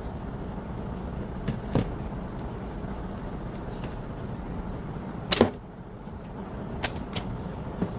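Paper airplane launcher firing: a few sharp snaps and clicks over a steady hiss. The loudest is a quick double snap about five seconds in, with lighter clicks before it and near the end.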